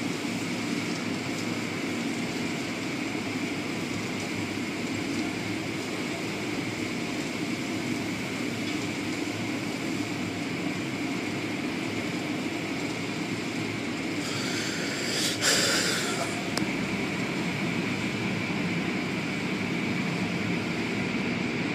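Automatic tunnel car wash heard from inside the car: a steady rumble and hiss of the wash machinery and water as cloth curtain strips sweep over the car. About fourteen seconds in, a louder hissing burst, like spray hitting the glass, lasts about two seconds, with a sharp click in the middle of it.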